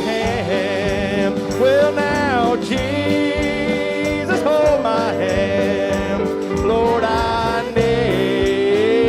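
Live country-gospel band playing an instrumental break: a lead instrument carries the melody in sliding, wavering notes over steady chords.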